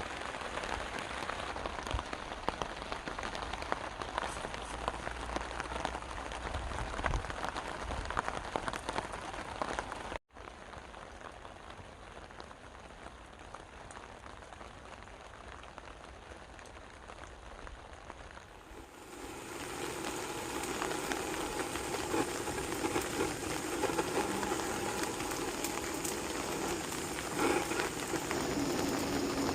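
Steady rain falling, an even hiss of drops with scattered sharper drop ticks. It drops abruptly to a quieter hiss about ten seconds in and comes back fuller and louder from about nineteen seconds.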